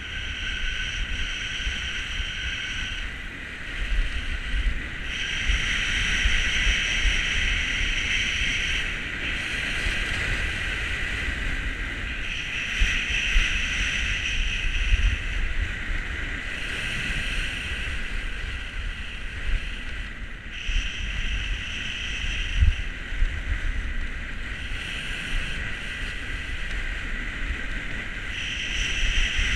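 Skis hissing and scraping over firm groomed snow through a series of turns, the hiss swelling and fading every few seconds, with steady low wind buffeting on the microphone.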